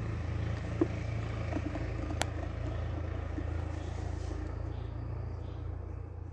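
Low, steady engine rumble of a tractor, fading near the end, with a couple of sharp clicks from a screwdriver working a motorcycle visor screw.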